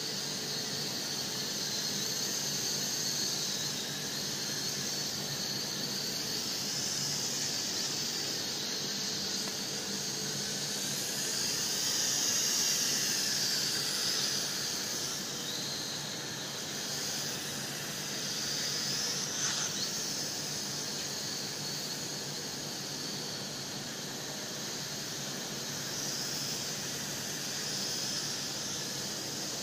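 Night Lions Tech N227 toy quadcopter in flight: its four small motors and propellers give a steady high-pitched whine that wavers slightly in pitch as it manoeuvres.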